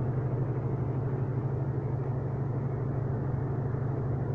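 A steady low mechanical drone, running evenly without change.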